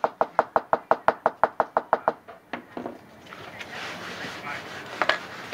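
A small hammer tapping quickly on a thin beech-wood tape strip against a wooden workbench, about five light knocks a second, stopping about two seconds in. Then gloved hands rub and handle the coiled wooden tape, with one sharper knock near the end.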